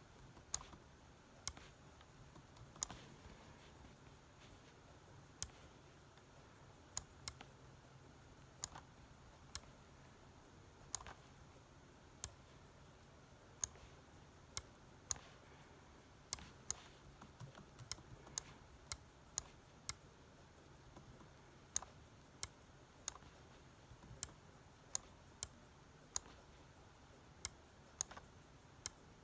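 Sparse, irregular clicks of a computer mouse and keyboard, about one a second, as notes are placed in a piano roll, over faint room hum.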